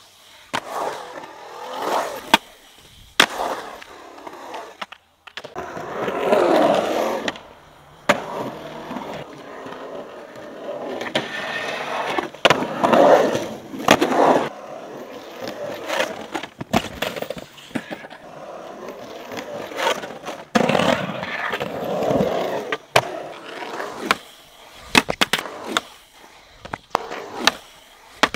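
Skateboard urethane wheels rolling on concrete, the rush swelling three times as the board passes close. Sharp clacks of trucks and tail striking the coping and the board landing.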